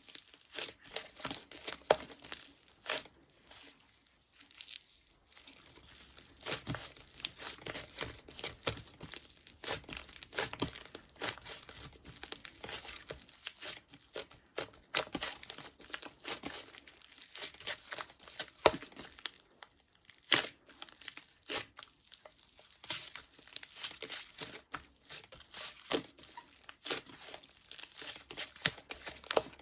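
Irregular crinkling and crackling of wrapping material being handled, in quick, uneven bursts with brief pauses.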